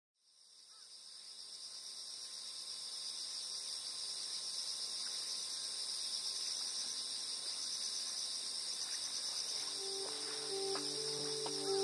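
A chorus of insects trilling steadily at a high pitch, fading in over the first couple of seconds. Soft sustained music notes come in near the end.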